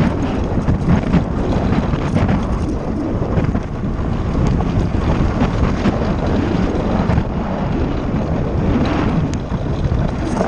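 A cart's wheels rumbling over a loose gravel track at speed, with wind buffeting the microphone.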